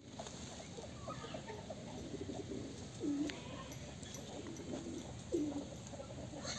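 Chickens clucking with short low calls, and two louder, drawn-out calls that fall in pitch about three and five seconds in.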